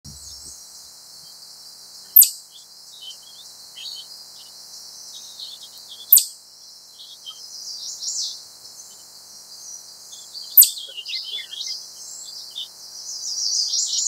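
Eastern chipmunk giving sharp, single high 'chip' calls, three in all, about four seconds apart. Small birds chirp and twitter softly in the background.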